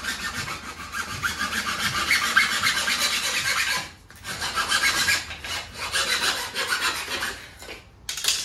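A saw cutting through 1.5 inch PVC pipe with quick, even back-and-forth strokes, pausing briefly about four seconds in, then sawing on until the pipe piece is cut off near the end.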